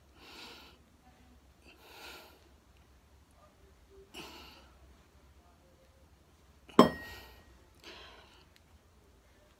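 A man breathing hard through dumbbell lifts, with a forceful exhale about every two seconds. About seven seconds in comes one louder, sharp knock with a brief ring.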